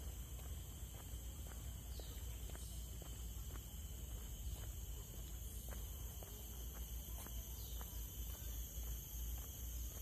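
Steady high-pitched insect drone at several pitches throughout, with light footsteps on the trail ticking at irregular intervals and a continuous low rumble underneath.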